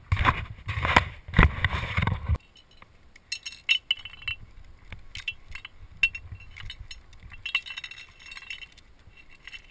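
Loud rustling and bumping for the first two seconds or so, then a rack of wired climbing nuts clinking and jangling against each other on their carabiner in scattered light metallic chinks as the climber picks out a nut to place in the crack.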